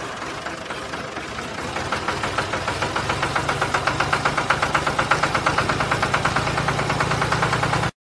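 Tractor diesel engine running, its chug becoming a fast, even beat about two seconds in, then cutting off suddenly near the end.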